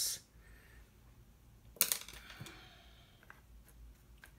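A sharp clink with a brief ring about two seconds in, then a softer knock and a few faint ticks: small hard objects being handled.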